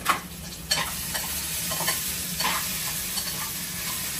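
Spoon stirring and scraping potato pieces in a stainless steel pan on a gas stove, several short scraping strokes with a sharp clink at the start, over a steady frying sizzle.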